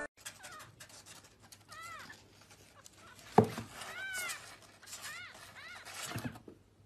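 Kitten mewing in several short, high, rising-and-falling calls. A sharp knock about halfway through is the loudest sound, and a softer thump comes near the end.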